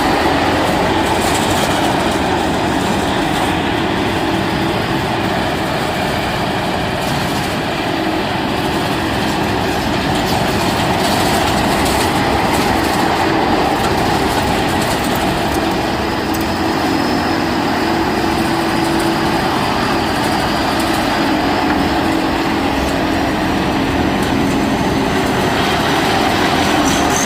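Pan Charoen combine harvester running steadily, its engine and machinery making a loud, continuous mechanical din with fine clatter.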